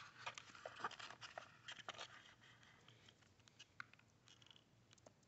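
Faint clicks and rustles of plastic earbuds and their cable being handled and lifted out of a foam box insert, busiest in the first two seconds, then a few scattered ticks.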